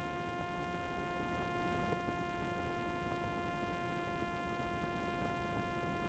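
Parrot Disco fixed-wing drone's electric motor and pusher propeller running at full throttle during the climb after launch: a steady, even-pitched buzzing whine with a rush of wind, heard from the camera mounted on the airframe.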